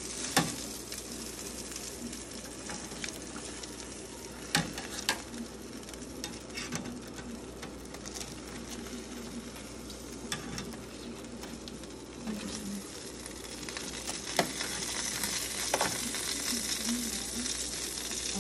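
Hot breaded chicken thighs sizzling on an air fryer oven's wire rack, a steady hiss, with a few sharp clicks and knocks as the pieces are turned over partway through cooking.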